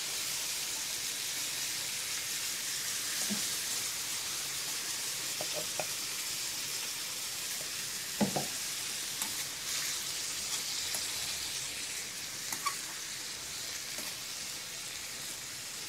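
Diced liver and peppers frying in a pan: a steady sizzle, with a few light clicks about halfway through and again near the end.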